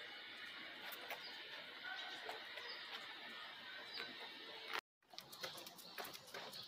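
Faint outdoor ambience with a few short bird chirps. It cuts out briefly about five seconds in, and light clicks follow.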